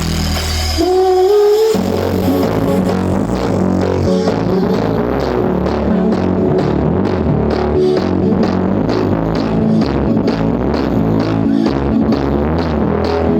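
Electronic dance music played loud through a large karnaval sound system stacked with subwoofers, with heavy bass. About a second in, the bass drops out briefly under a rising synth slide, then a steady fast beat comes back in.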